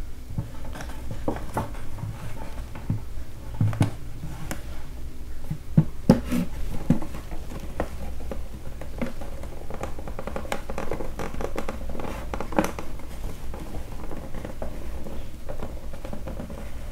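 Fingernails scratching and prying along the seam of a Dell Inspiron 3180 laptop's tight-fitting plastic bottom cover, with irregular small clicks as the clips are worked loose. The sharpest click comes about six seconds in.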